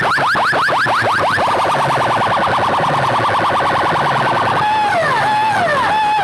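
Electronic siren sound played very loud through a large stack of horn loudspeakers, switching patterns: quick rising sweeps several times a second, then a rapid warble from about a second and a half in, then a slower up-and-down wail again about four and a half seconds in.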